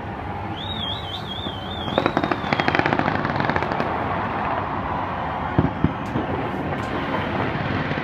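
Fireworks going off: a high wavering whistle, then a rapid run of crackling reports about two seconds in, and a couple of separate bangs later on, over a steady background din.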